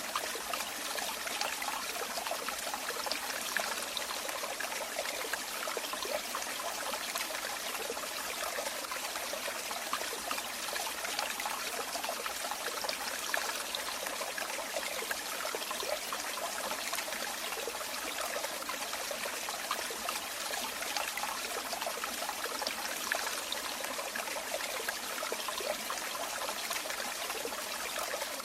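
Running water trickling and splashing steadily, a continuous bright, even rush with fine flickering detail.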